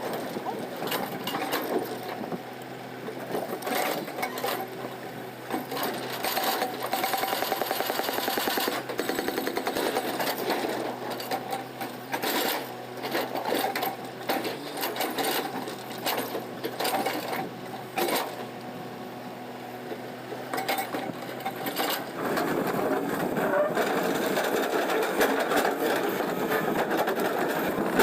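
Hydraulic breaker on a JCB backhoe hammering in fast, rapid blows, in spells that stop and start, over the machine's running diesel engine. Near the end the machine runs louder and more steadily.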